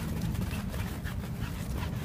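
Two dogs running and playing, their faint short sounds heard over a steady low rumble on the microphone.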